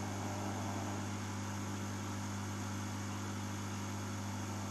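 Hot-air rework station blowing steadily on an eMMC memory chip to reflow its solder: an even rush of air over a low, steady hum.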